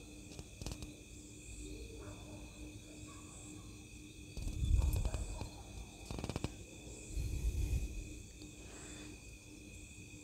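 Domestic sewing machine stitching a sleeve seam in short stop-start runs, with rapid needle ticking a little past the middle, while the fabric is shifted by hand. A steady high-pitched chirring tone sits underneath throughout.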